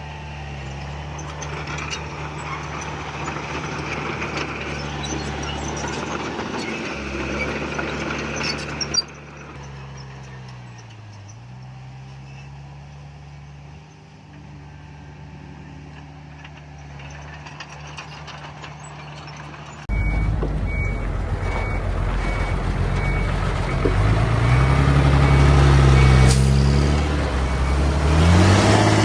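Diesel engines of heavy earthmoving machinery running under load, their pitch dipping and rising. About two-thirds of the way in, a louder engine comes in with a reversing alarm beeping steadily.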